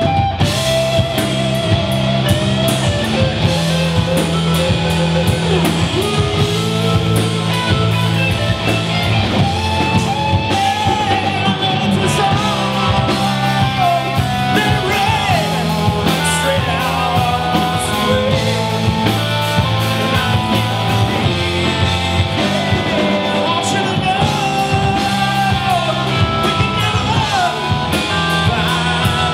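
Live rock band playing: two electric guitars, electric bass and drum kit, with a man singing lead.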